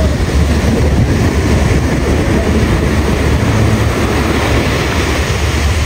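Ocean surf breaking and washing up a sandy beach, with wind buffeting the microphone as a heavy, fluctuating low rumble.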